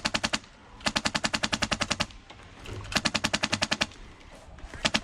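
Airsoft gun firing on full auto in bursts of rapid shots, about fifteen a second: a short burst cut off right at the start, a longer one of about a second, a shorter one near the middle, and another starting near the end.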